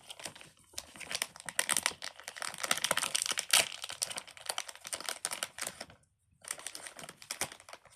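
Crinkling and rustling as small fidget toys and their packaging are handled: a dense run of fine crackles with a short pause about six seconds in.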